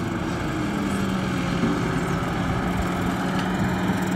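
Claas Jaguar 870 forage harvester chopping grass, with a New Holland TM tractor pulling a silage trailer alongside: a steady engine and machinery drone with an even hum.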